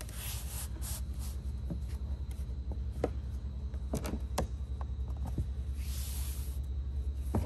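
Hands rubbing and pressing along the seams of floor tiles, a soft scratchy sound with a few small clicks and taps, over a steady low hum.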